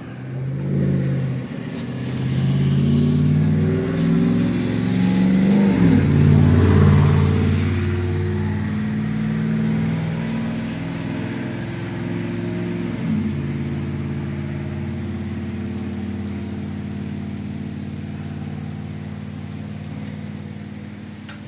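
Long rolling thunder rumble following a close clap, building for about seven seconds and then fading slowly.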